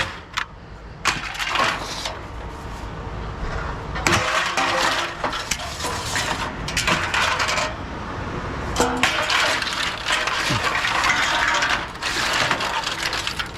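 Scrap metal clattering and clinking as pieces are handled and dropped, in irregular bursts.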